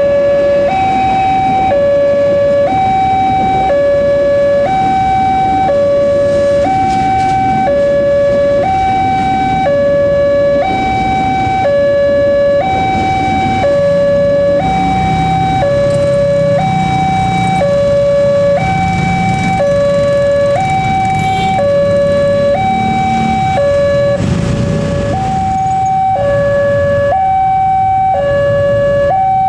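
Railway level-crossing warning alarm sounding its two-tone electronic signal, switching between a lower and a higher pitch about once a second, which warns that a train is coming and the crossing is closed. Through the middle a KRL Commuter Line electric train adds a low rumble as it passes.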